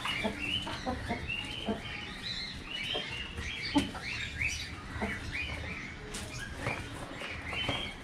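A flock of birds chirping busily, with many short rising-and-falling chirps overlapping one another and a few scattered clicks.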